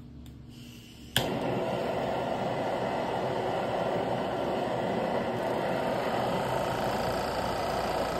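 A handheld butane blowtorch lit with one sharp click about a second in, then its flame burning steadily with an even rushing noise.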